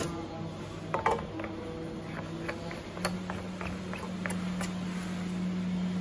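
Light clicks and knocks of an aluminium bracket and plastic parts being handled on the plastic shell of a Trilens radar reflector, with the loudest knocks about a second in and scattered ticks after. A steady low hum underneath grows stronger about halfway through.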